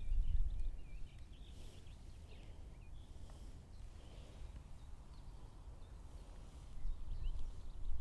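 Wind rumbling on the microphone, with faint bird chirps and trills now and then.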